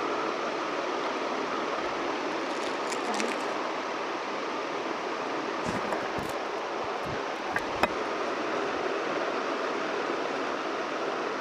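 Steady, even hiss of background noise, with a few faint clicks about three, six and eight seconds in.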